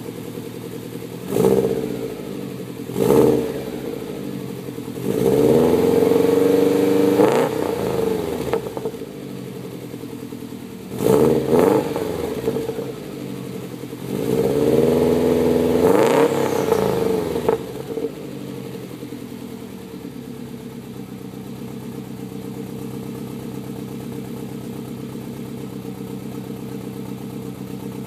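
2005 Subaru WRX's turbocharged 2.0-litre flat-four, with a VF34 turbo and a TurboXS turbo-back exhaust, idling and being revved. Two quick blips, a rev held for about three seconds, another quick blip, and a second held rev, then it settles back to a steady idle.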